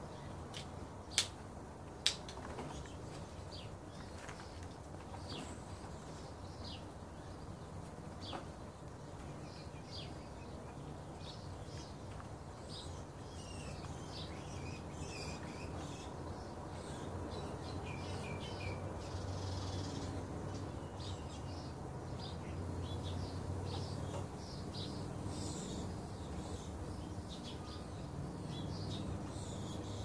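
Song thrush striking a snail's shell against concrete: two sharp cracks about a second apart near the start. Many short, high bird chirps follow over a low rumble that grows louder toward the end.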